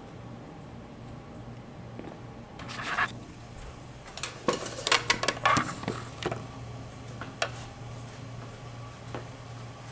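Handling noise from a video camera being picked up, moved and set down on a carpeted floor: a rustling swell about three seconds in, then a cluster of clicks and knocks between about four and six seconds, over a steady low hum.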